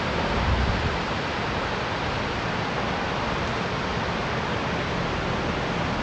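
Whitewater river rapids rushing: a steady, dense roar of churning water. A brief low bump sounds about half a second in.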